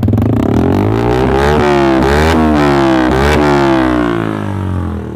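Motorcycle engine revved through an aftermarket Akrapovič silencer during a sound test. The pitch climbs and drops in about three blips before settling back toward idle. The exhaust note is loud, with little bass.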